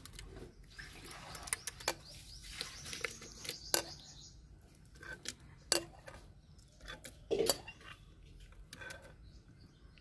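Metal spoon scraping and clinking against a glass bowl as mango pieces are pushed off it into a mixer-grinder jar, in irregular taps and clinks with a scratchy scraping stretch about a second in.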